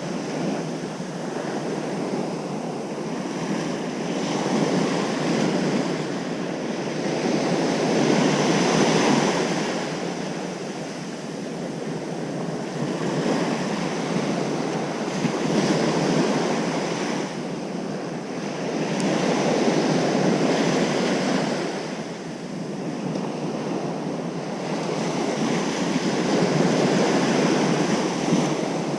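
Ocean surf breaking on a beach: a steady rush of water that swells and eases every several seconds as each wave comes in.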